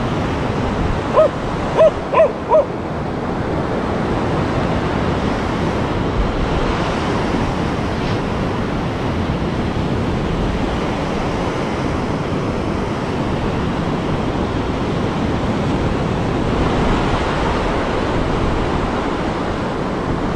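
Ocean surf breaking and washing up a sandy beach, a steady rush of waves, with wind on the microphone. About a second in, four short chirping calls sound in quick succession.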